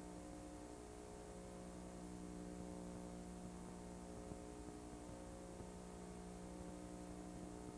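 Steady electrical hum with several steady tones over a soft hiss, unchanging throughout: the mains hum and noise of an old videotape transfer.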